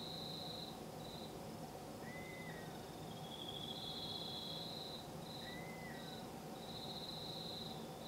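Crickets trilling in high-pitched bouts of a second or two with short gaps. Twice, about two seconds in and again past the middle, a short arched call from another night animal sounds lower down, over a faint steady background hum.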